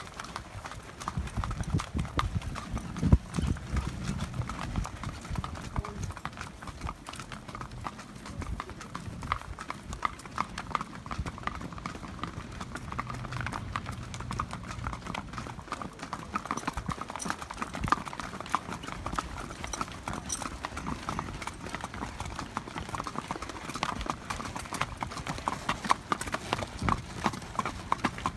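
Hooves of several horses walking on wet asphalt, a steady patter of many overlapping clip-clopping hoofbeats.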